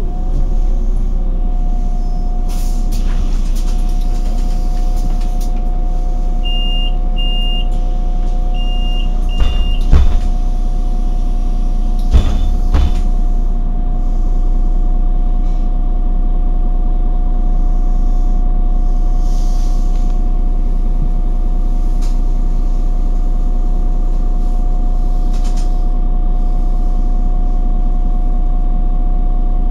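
City bus engine idling while the bus stands in traffic, heard from inside the bus as a steady hum with a held whine. Four short high beeps come around the middle, followed by a couple of knocks and air-brake hisses.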